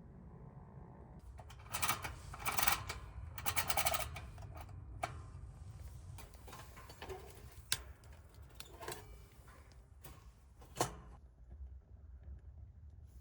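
Handling of the fire-blowing pipe's carrying case. Three bursts of fast rasping clicks come about two to four seconds in, then scattered sharp clicks and light taps.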